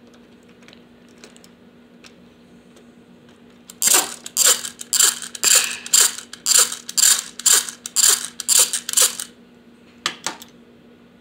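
Plastic Shrek Donkey candy caddy toy worked by hand. Its mechanism gives a run of about a dozen loud rattling clicks, roughly two a second, and two more near the end.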